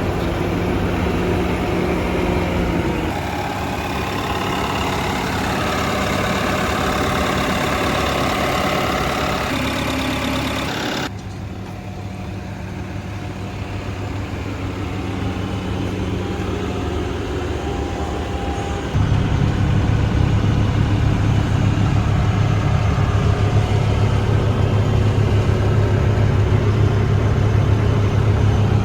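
Bobcat S590 compact skid steer's diesel engine running steadily. About eleven seconds in, the higher-pitched part of the sound drops away abruptly. Around nineteen seconds in, the engine gets louder with a stronger low hum, as when the throttle is raised.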